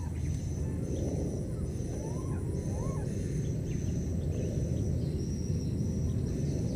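Outdoor forest ambience: a steady low rumble with a high buzz pulsing roughly once a second, and two short rising animal calls about two and three seconds in.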